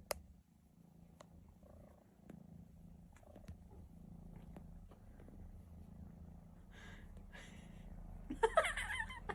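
Domestic cat purring steadily and close up, the low purr swelling and easing with its breathing, with a few faint clicks. Near the end comes a short, louder vocal sound that bends in pitch.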